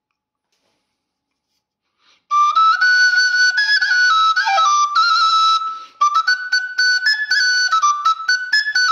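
A plastic student-model khlui (Thai vertical duct flute) being played: a melody of high, stepping notes that starts a little over two seconds in, with a brief break about six seconds in.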